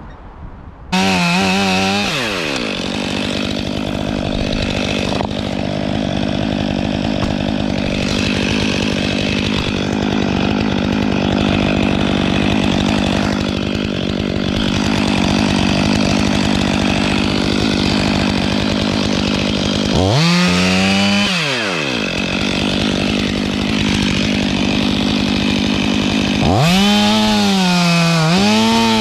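Stihl 500i two-stroke chainsaw cutting into a wood spar, coming in suddenly at full throttle about a second in. It runs on at high revs through the cut, its pitch sagging and recovering a few times near the end as the chain loads in the wood.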